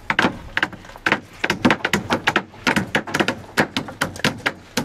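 Hand tools striking again and again at a building site: a fast, irregular run of sharp knocks, several a second, some overlapping as if more than one tool is going at once.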